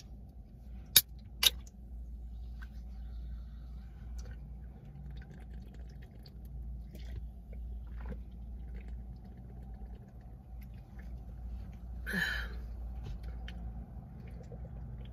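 Red Bull can opened with two sharp clicks of the tab about a second in, then faint gulping as the drink is chugged, and a short breathy noise near the end. A low steady hum runs underneath.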